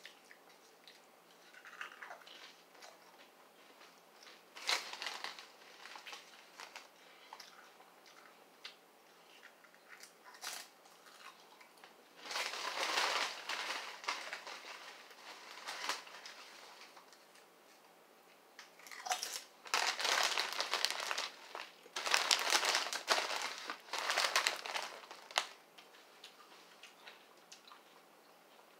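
Crunching and chewing of kettle-style potato chips, with a sharp bite crunch about five seconds in, and the loud crinkling of the foil chip bag in two long spells as a hand rummages in it and the bag is picked up.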